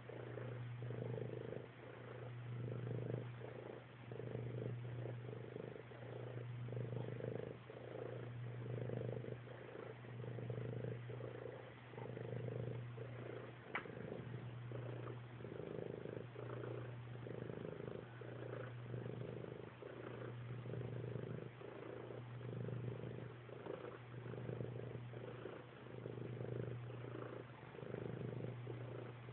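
A domestic cat purring close up while it kneads a soft blanket. The purr is steady and low, swelling and easing about every two seconds. One sharp click comes about halfway through.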